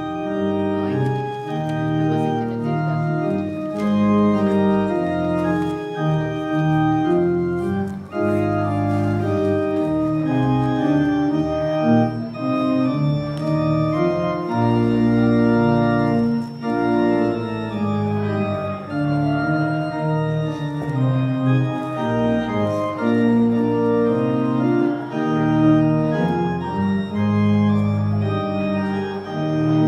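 Organ playing the closing postlude at the end of a church service: full sustained chords that change every second or so.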